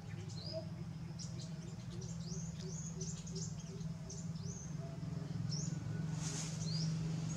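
Small birds chirping: many short, high, falling chirps in quick irregular succession, over a steady low hum.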